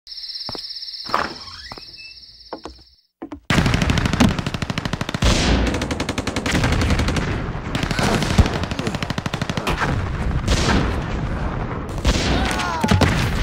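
Movie-style sound effects for a surround-sound demo. A faint high steady trill with a few clicks breaks off into a moment of silence, then a loud, very fast rattling train of pulses bursts in about three and a half seconds in and keeps going, with repeated sweeping whooshes over it.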